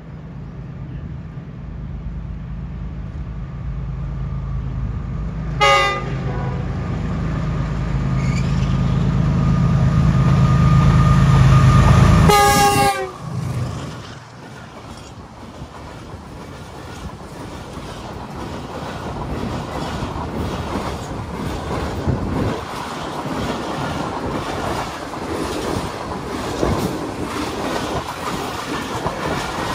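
Pakistan Railways diesel-electric locomotive approaching with its engine growing louder. It sounds its multi-tone horn in a short blast about six seconds in, then a longer, louder blast about twelve seconds in as it passes. The engine sound then falls away, and the passenger coaches follow with a building clickety-clack of wheels over rail joints.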